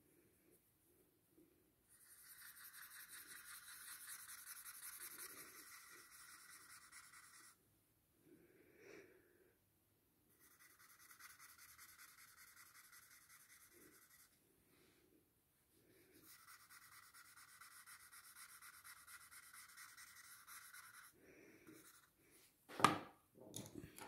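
Pencil shading on drawing paper: quick back-and-forth strokes making a faint scratchy rubbing, in three stretches of a few seconds each, followed by a couple of light knocks near the end.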